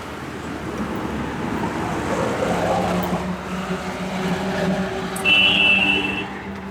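Street traffic noise: a steady rumble of passing vehicles, with a short high-pitched tone a little past five seconds in.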